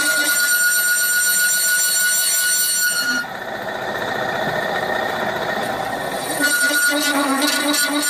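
Milling machine end mill cutting a hole in a brass plate, with a steady high whine from the cut. The whine drops out and the noise gets quieter about three seconds in, then returns about six and a half seconds in.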